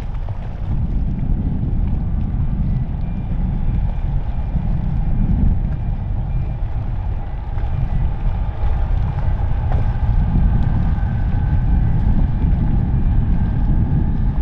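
Fairchild Dornier 328JET's Pratt & Whitney PW306B turbofans whining steadily as it taxis, under a loud low rumble with wind noise on the microphone. A higher whine joins about halfway through.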